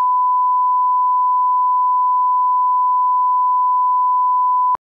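Steady 1 kHz line-up test tone, a single pure beep held at one pitch, sent with colour bars as a reference for setting audio levels. It cuts off abruptly with a faint click near the end.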